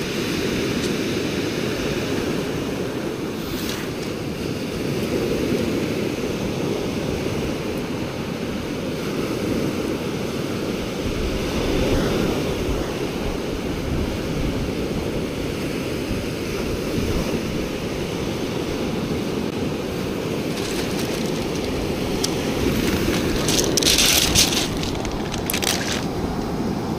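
Sea surf washing onto the beach, a steady swelling rush, with wind buffeting the microphone. A few short hissing sounds stand out near the end.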